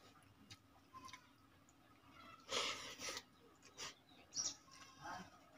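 Faint eating noises: a handful of short, separate mouth sounds, chewing and smacking, as watered rice (pakhala) and curry are eaten by hand.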